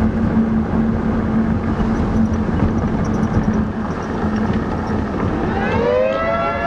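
Car driving with road and wind noise and a steady engine drone. About five seconds in, an outdoor tornado warning siren starts winding up, rising in pitch over about a second and then holding a steady wail: the town's tornado warning going off.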